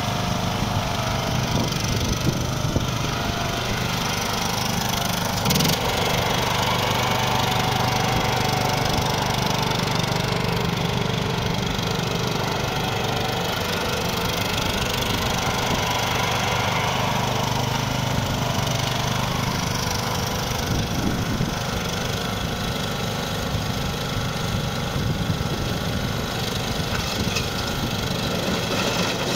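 Westwood ride-on lawnmower engine running steadily as the mower is driven around, with one brief knock about five seconds in.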